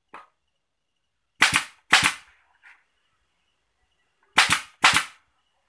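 Pneumatic staple gun firing four times, in two pairs of sharp shots about half a second apart, driving staples through speaker grille cloth into a wooden frame.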